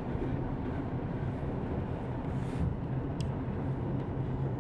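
Commuter train running steadily, a continuous low rumble of wheels on rail heard from inside the cab car, with a brief faint hiss and a short click midway.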